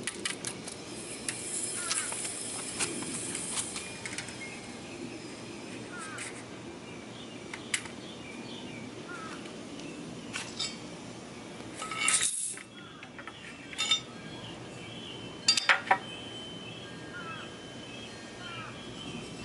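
Metallic clicks and clinks of a steel tape measure being pulled out along a board and let run back, loudest in a cluster a little past the middle and three sharp clicks near the end. Short bird chirps repeat throughout over a steady outdoor hiss.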